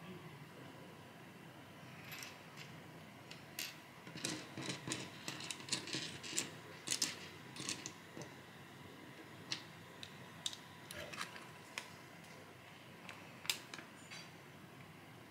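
Plastic LEGO pieces clicking as they are picked up off a table and pressed together onto a build. It is a run of quick sharp clicks, busiest a few seconds in, then thinning out to scattered single clicks.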